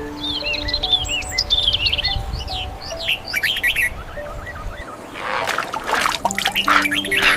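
Birds chirping in quick, repeated arching notes over soft background music of held notes. About five seconds in, a harsher, rougher bird call takes over.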